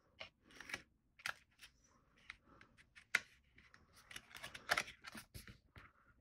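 Card stock being handled and folded on a cutting mat: short paper rustles and rubs with light taps, and one sharp click about three seconds in.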